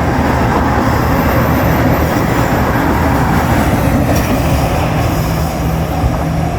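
Nanpu limited-express diesel railcar train passing over the crossing close by: a loud, steady rumble of wheels on rail and running engines that eases slightly near the end.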